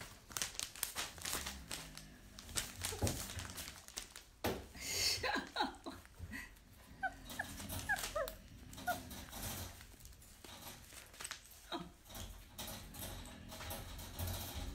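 Puppy whimpering and yipping in a string of short, high-pitched cries, some falling in pitch, about five to nine seconds in, amid scattered taps and rustling.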